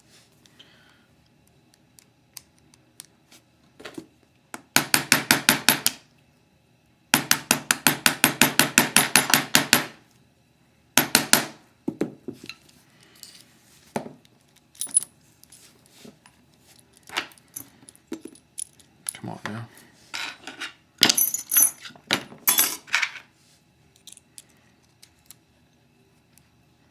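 Small metal lock parts and tools being worked while a lock is taken apart. Two runs of rapid, even clicking, about a second and three seconds long, come from about five seconds in. Scattered metallic clicks and clinks follow, a few with a bright ring.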